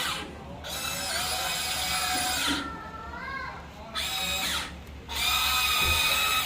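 Electric gear motors of a Huina 1594 RC excavator whining in three bursts as its controls are worked, each burst starting and stopping abruptly.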